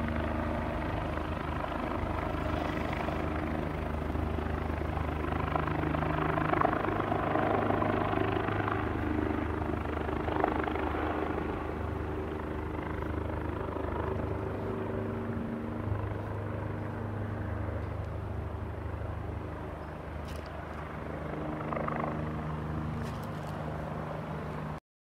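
Helicopter passing low overhead, very loud: a steady low rotor and engine drone with a pitched hum beneath it. It is loudest about seven seconds in, eases off, swells briefly again, then cuts off abruptly near the end.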